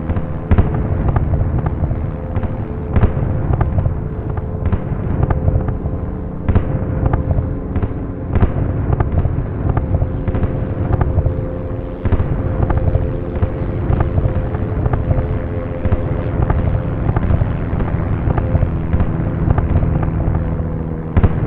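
Air-raid explosions: a continuous low rumble packed with many sharp blasts, over a steady low droning hum.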